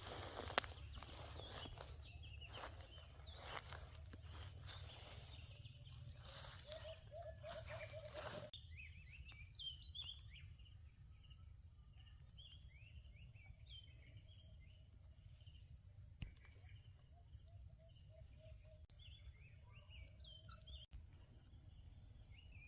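Steady high-pitched drone of an insect chorus, with the rustle of footsteps through vegetation for the first eight seconds or so. After that, short rising bird chirps come through over the drone.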